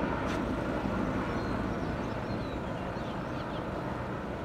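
Distant helicopter in flight: a steady low drone that grows slightly fainter.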